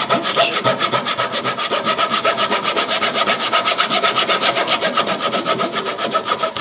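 Small hand saw cutting through a cricket ball, a steady, quick run of rasping strokes without a break.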